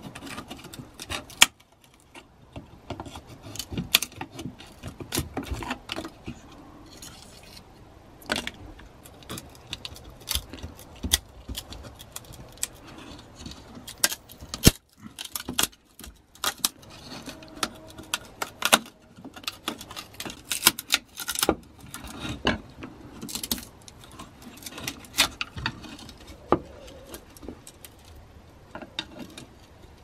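Flat-blade screwdriver prying and scraping rotten wood off an old coffee grinder's wooden base: an irregular run of sharp clicks, scrapes and small cracks as pieces split away, with some metallic clinking.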